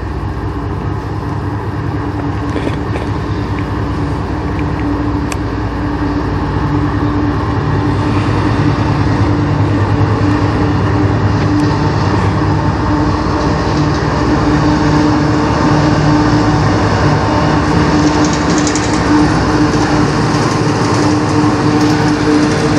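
CN diesel freight locomotive approaching and passing close, its engine running with a steady low drone that grows slowly louder.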